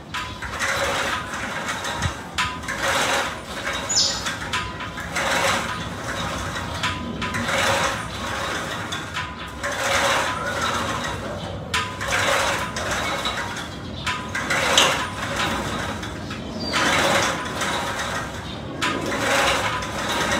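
Cable machine's pulleys and steel cable running with each rep of a one-arm cable pull, a mechanical rattle that comes about a dozen times, roughly every one and a half to two seconds.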